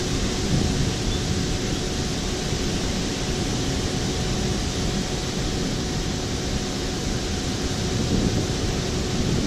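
A steady, even rushing noise with a faint constant hum in it, unchanging throughout, of the kind a running fan or air-conditioning unit makes.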